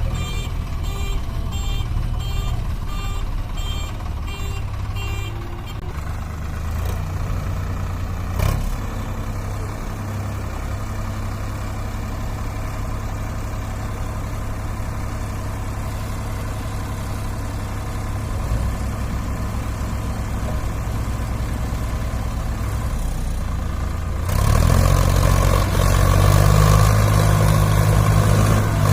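Diesel engines of a JCB 3DX backhoe loader and a tractor running, with the backhoe's reversing alarm beeping about twice a second for the first few seconds as it backs in behind the stuck trolley. A single knock comes near the 8-second mark, and near the end the engines rev up hard under load as they push and pull the loaded trolley.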